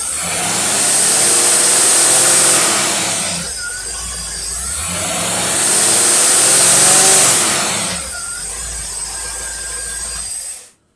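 Engine running a Rochester two-barrel marine carburetor under dyno load, its throttle opened twice by hand: each time the engine revs up over about two seconds, holds, then drops back to idle. It shuts off suddenly near the end.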